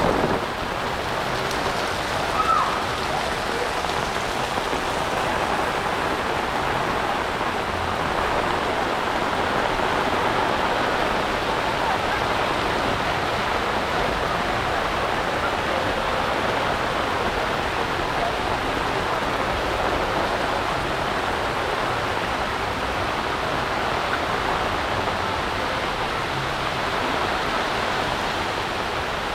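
Heavy rain falling steadily, a constant hiss of rain on the ground.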